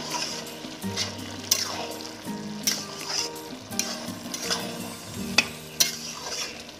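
A metal spatula stirring and scraping a thick bottle gourd and fish-head curry in a large metal kadai, in repeated strokes about every half second to second. The food sizzles under the stirring.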